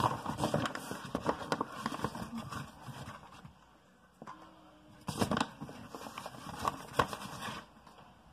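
Flour being scooped from a paper bag with a measuring cup: the paper bag rustling and crinkling, with short taps and knocks of the cup, in two bouts with a pause of about a second and a half between them.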